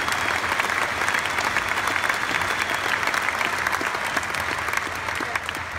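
A large arena audience applauding, a dense continuous clapping that begins to die away near the end.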